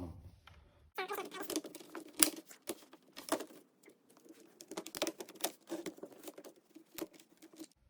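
Acer Aspire laptop's plastic bottom case being pried open: irregular clicks, snaps and scraping as its clips let go, the sharpest snap about two seconds in.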